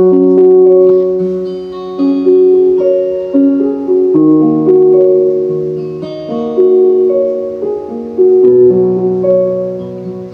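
Piano music, the instrumental intro of a romantic rap song: a new chord struck about every two seconds and left to fade, with single melody notes above it.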